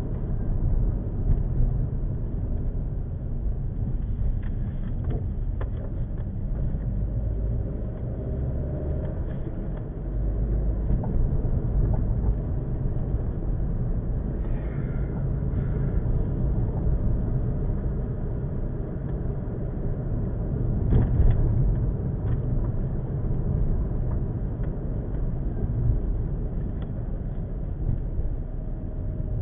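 A car driving slowly over rough, cracked pavement, heard from inside the cabin: steady low road and engine rumble with a few knocks and rattles from bumps.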